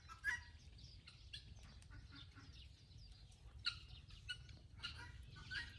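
Faint, scattered short bird calls, a few chirps spread across the seconds, over a low steady rumble.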